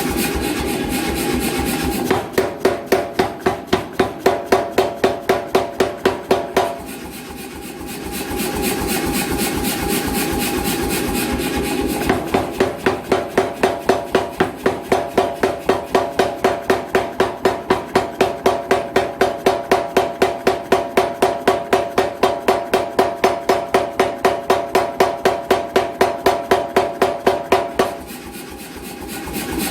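An 88 lb C41 power hammer running, then striking hot steel in rapid, evenly spaced blows, several a second, with a metallic ring. There are two runs of blows, a short one starting about two seconds in and a long one starting about twelve seconds in. Between them the machine runs without striking.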